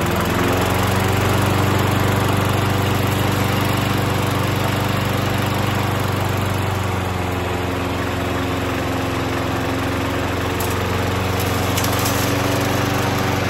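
Walk-behind push mower's small single-cylinder engine running steadily while blowing out heavy white smoke, the sign of a smoking engine.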